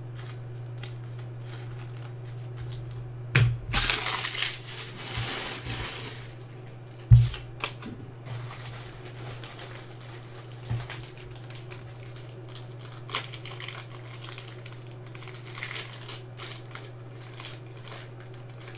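Crinkling of plastic card packaging as a freshly pulled trading card is handled and put away, with a sharp knock about seven seconds in and a few small clicks after. A steady low electrical hum sits under it throughout.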